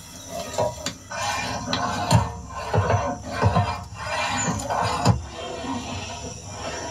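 A metal ladle knocking and scraping against a large metal cooking pot, in several irregular clanks.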